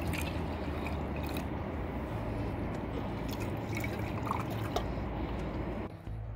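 Liquid trickling and dripping while camp coffee is made over the embers of a campfire; the sound cuts off abruptly near the end.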